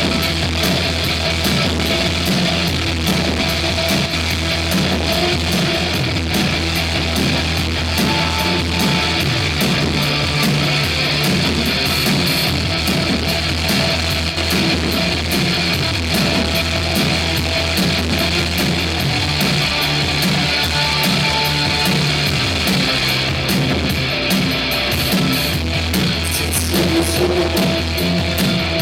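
Live rock band playing an instrumental passage, with distorted electric guitar over bass and drums.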